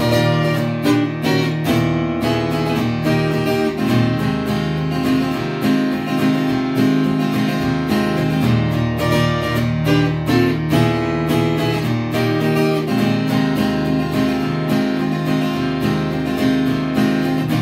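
Acoustic guitar strummed in a steady rhythm with no voice: an instrumental break between sung verses of a country-folk song.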